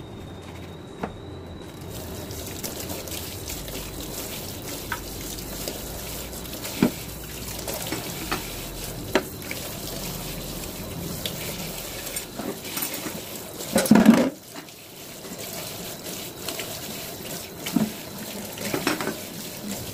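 Tap water running into a stainless steel sink, starting about two seconds in, as gas stove pan supports and burner rings are rinsed under it. Scattered knocks of the metal parts against the sink, the loudest about 14 seconds in.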